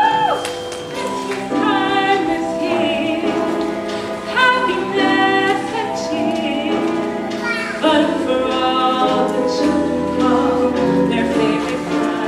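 Choir singing in harmony, sustained notes with vibrato that change every half second or so, over musical accompaniment.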